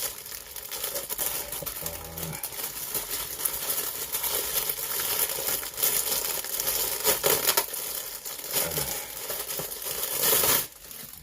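Packaging crinkling and rustling as a plush toy is unwrapped and handled, continuous and fairly loud, stopping abruptly near the end.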